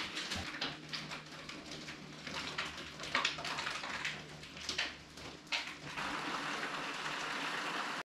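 Heavy rain outside, heard from indoors as a steady hiss, with a few brief sharper sounds near the middle and a low hum for most of it.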